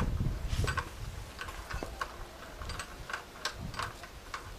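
Irregular metallic clicks, a few a second, from a wrench working the bolts at a concrete mixer's drum hub as they are tightened.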